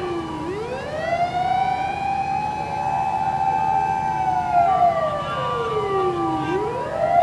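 Emergency vehicle siren wailing in slow cycles: the pitch rises, holds level for about three seconds, then slides down and climbs again, with vehicle rumble underneath.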